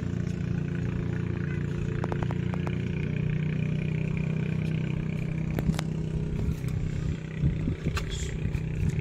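An engine running steadily with a low hum, joined by a few light clicks and knocks.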